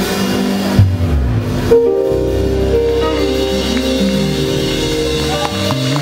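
Live band playing with keyboards, electric guitar, bass and drums. Two sharp hits come about one and two seconds in, then long held chords.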